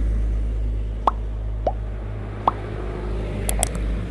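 Three short plops, each with a quick slide in pitch, come about a second in, near halfway and a little later, over a steady low hum. A few sharp high clicks follow near the end.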